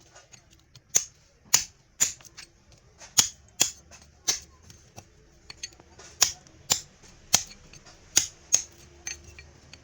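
Sharp snapping clicks, about a dozen at an uneven pace of one or two a second, as a tool works through the copper winding of a washing machine motor to cut it out.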